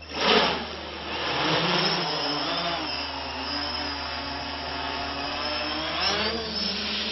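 Electric motor and rotor of a radio-controlled model helicopter whirring, its pitch wavering up and down and rising near the end as the throttle changes. A brief loud burst comes just after the start.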